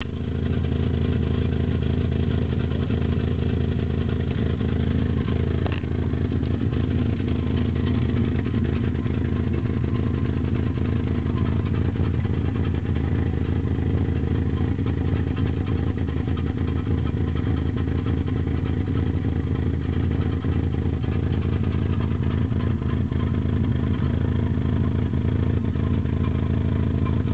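A vehicle engine running steadily at constant speed, with no revving, and a single short click about six seconds in. The owner takes the sound for an abnormal noise.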